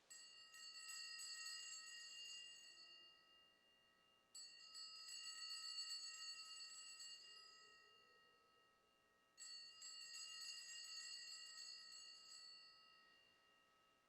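Altar bells rung three times, a few seconds apart, each ring a bright shimmering jingle that fades away. They mark the elevation of the chalice at the consecration of the Mass.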